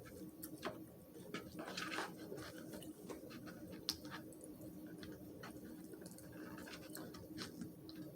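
A person eating: faint wet chewing and lip-smacking with scattered small clicks.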